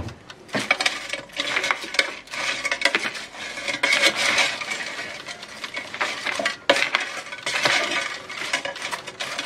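Air-fried French fries rattling and clattering against the air fryer's basket as they are tossed by hand and stirred with a wooden spatula, a dense run of irregular clicks and rustles. A sharp knock right at the start.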